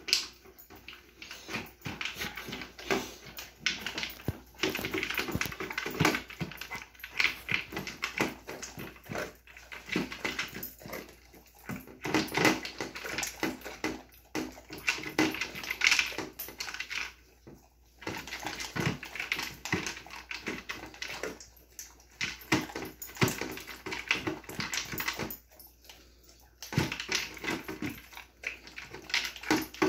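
Dog eating kibble from a slow feeder bowl: a fast, irregular clatter of food and teeth against the bowl, with licking and snuffling, broken by a few short pauses.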